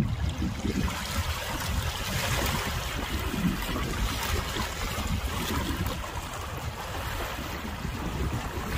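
Small wind-driven waves lapping and splashing over the stones of a rocky lake shore, with wind buffeting the microphone in a steady low rumble.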